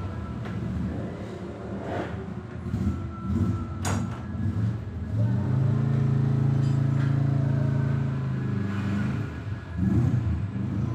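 A motor vehicle engine running, with a low drone that shifts in pitch and then holds steady for a few seconds in the middle. A single sharp crack is heard about four seconds in.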